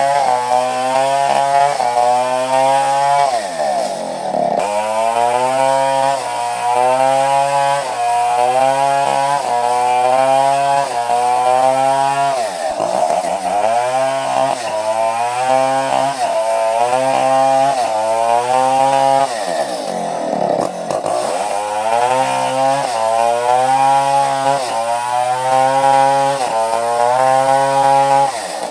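Two-stroke chainsaw running under load as it cuts coconut-palm wood, its engine pitch wavering as the chain bites. About every eight seconds the pitch sags sharply and then climbs back up.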